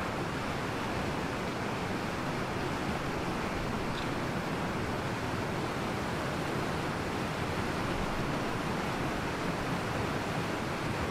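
Steady rushing of whitewater in a rocky stream, an even, continuous noise of water tumbling over boulders.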